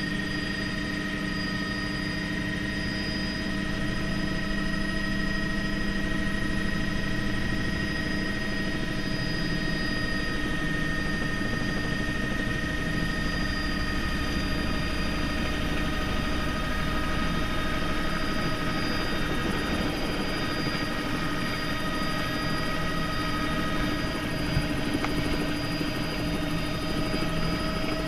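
Helicopter running steadily as it comes in low to land: a constant high whine with several held tones over a low rumble.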